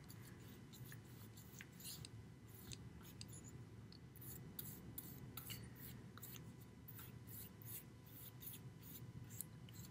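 Paintbrush bristles brushing gesso across a masonite board: faint, scratchy strokes, a few each second.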